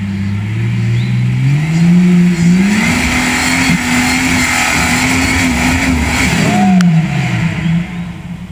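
Jeep Wrangler TJ engine revving hard under load on a steep dirt climb: the revs rise over the first two seconds, hold high, then fall away about seven seconds in, with a brief sharp crack as they drop.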